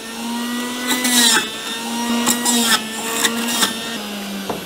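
Sujata electric juicer motor running steadily, with several short bursts of louder grinding as ash gourd pieces are pressed down the feed chute onto the spinning cutter. The hum drops abruptly near the end.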